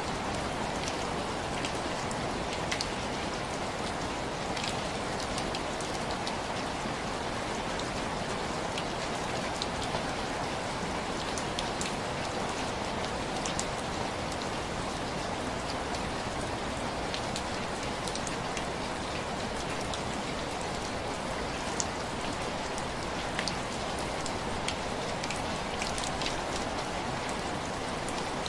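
Heavy rain falling steadily, with scattered small crackles from a wood fire.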